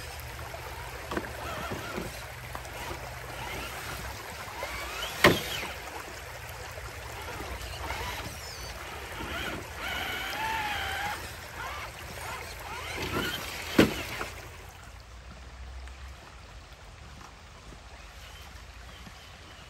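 Water splashing and sloshing in a shallow stony creek as an RC crawler wades through, with small clicks, two sharp knocks about five and fourteen seconds in, and a brief wavering whine around ten seconds in. It quiets down after about fifteen seconds.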